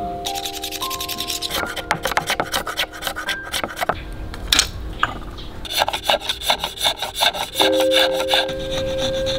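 A small blade shaving a thin palm-bamboo fan rib in quick, repeated rasping strokes. The strokes come in two runs, with a short pause in the middle.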